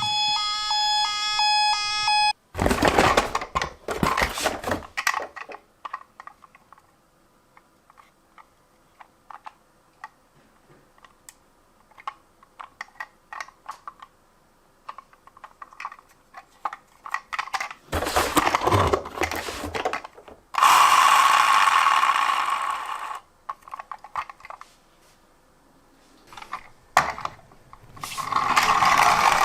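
A toy ambulance's electronic siren beeps a stepped tune for about two seconds, then stops. After it come bursts of scraping noise and many small clicks and rattles of small plastic toy vehicles being handled, with louder scraping stretches near the middle and again near the end.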